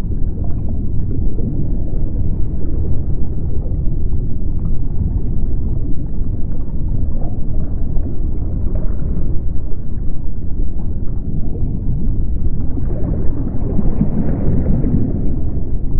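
Underwater ambience: a steady low rumble with faint gurgling, swelling briefly near the end.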